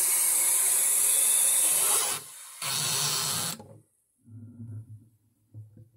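Bathroom faucet running water into a glass bottle, filling it. The flow sound dips briefly about two seconds in, then stops abruptly a little past halfway as the tap is shut off.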